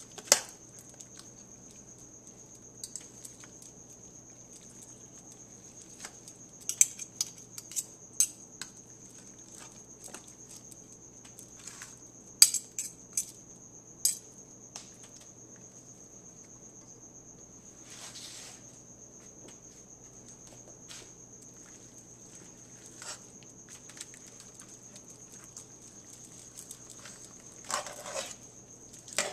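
Metal clinking and scraping on a stainless steel pot as slow-cooked pork roast is pulled apart with forks, in scattered sharp clicks that come in clusters. A faint steady high whine sits under it.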